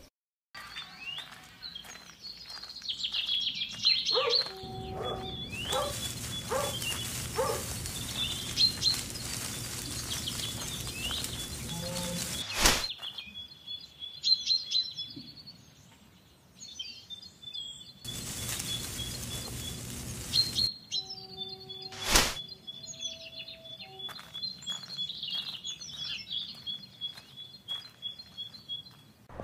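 Birds chirping and calling, with a high, rapid dotted trill running under them. Two long stretches of rushing noise come and go, and there are two sharp knocks, near the middle and about two-thirds of the way through.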